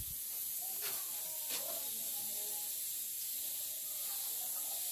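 Pork pieces frying in a pan in the fat they have rendered out, sizzling steadily, with a couple of faint clicks about a second in.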